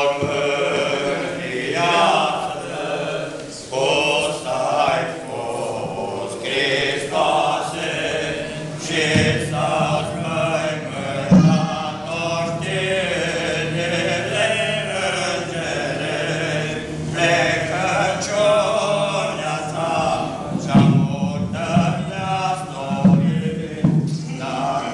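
Orthodox church chant: several men singing a hymn together without instruments, with a single thump near the middle.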